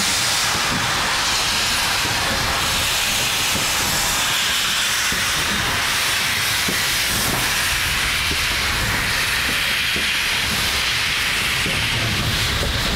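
GWR Castle class four-cylinder 4-6-0 steam locomotives passing slowly in line, giving a loud, steady hiss of steam from their open cylinder drain cocks over a low rumble.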